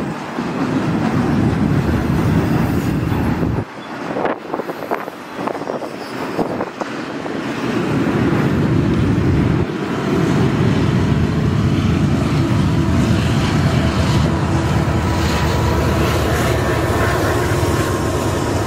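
Double-stack container freight train rolling past with a steady rumble of cars on the rails. About ten seconds in, the diesel locomotives at the rear of the train pass, and the sound turns louder and steadier.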